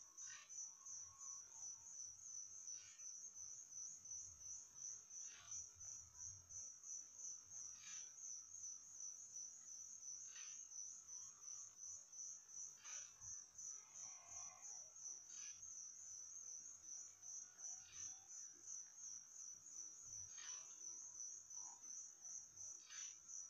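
Faint, steady chirping of crickets, a high trill that pulses evenly, with a short, sharper chirp repeating about every two and a half seconds.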